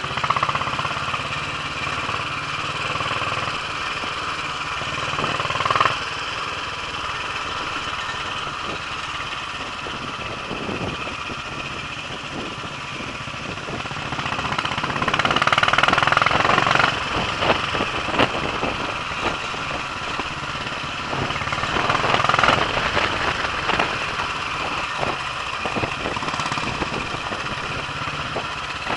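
Royal Enfield single-cylinder motorcycle engine running while riding downhill, with many short knocks and rattles from the road. It gets louder for a couple of seconds twice, about halfway through and again a little later.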